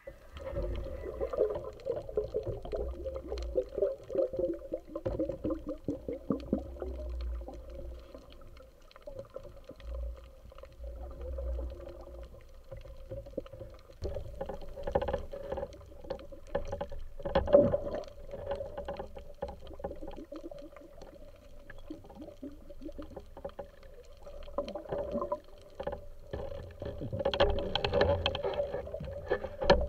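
Muffled underwater sound picked up by an action camera submerged with a snorkelling spearfisher over a reef: water churning and bubbling, with many irregular clicks and knocks and a steady hum underneath. It swells louder around the middle and again near the end.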